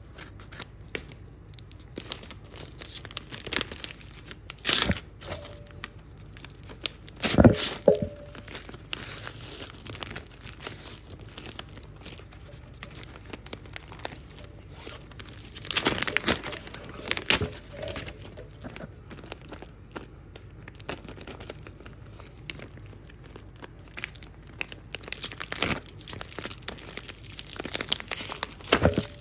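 Plastic mailer bag and cellophane wrappers being cut, torn open and handled: irregular crinkling and rustling, with several louder sharp rips and crackles scattered through.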